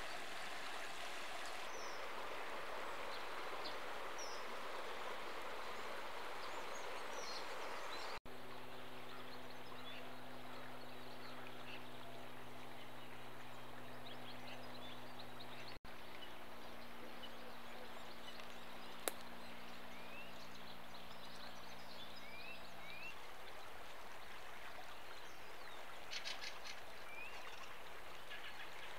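River water flowing with a steady rushing hiss, and scattered birdsong: short chirps and a quick trill near the end. From about a third of the way in to about three quarters, a steady low hum sits underneath, and the sound drops out for a split second twice at cuts.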